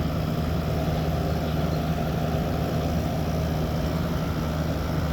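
Frigidaire 8,000 BTU window air conditioner running, heard from its back side: a steady low compressor hum under the even rush of the condenser fan blowing out hot air.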